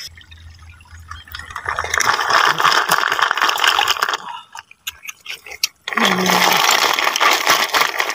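Water splashing and pouring in two long spells, the first about two seconds in and the second from about six seconds in.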